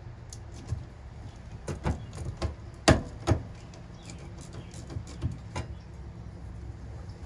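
Rain pattering on a van's metal roof, with irregular clicks and knocks as a screw is driven into a metal floor plate with a hand screwdriver; the loudest knocks come about two to three and a half seconds in.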